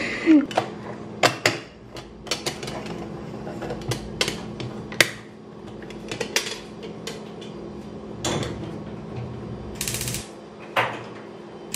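Metal clinks and knocks of an aluminium stovetop moka pot being handled and set down on a gas stove. There is a short hiss about ten seconds in.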